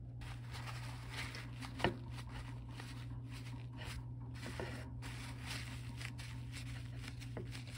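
Paper kitchen towels rustling and crinkling as they are wrapped and pressed around a block of tofu to blot its water, with one sharp tap about two seconds in. A steady low hum runs underneath.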